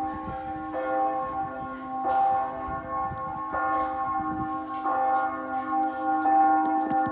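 Church bells ringing. A new stroke comes roughly every second and a half, each one ringing on over the last.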